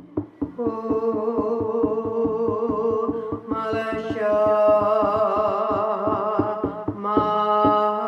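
A voice chanting long held, wavering notes over a steady drum beat of about four to five strokes a second. The voice comes in under a second in and moves to a new pitch twice.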